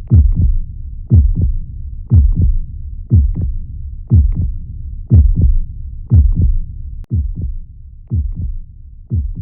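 Heartbeat sound effect: a low double thump, lub-dub, about once a second over a low rumble, growing a little quieter near the end.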